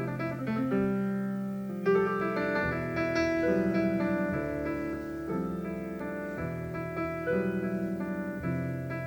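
Piano playing a slow passage of sustained chords, with rapidly repeated notes ringing over them, gradually growing softer.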